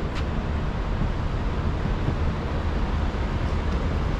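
Steady low rumble and hiss of open-air background noise, without any distinct event.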